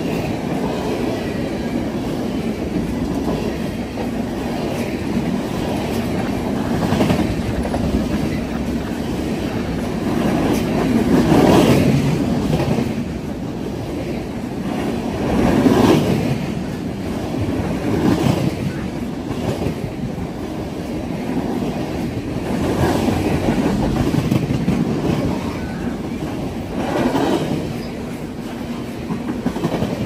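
Freight train of tank cars rolling past at close range: a steady rumble of steel wheels on rail that swells louder every few seconds.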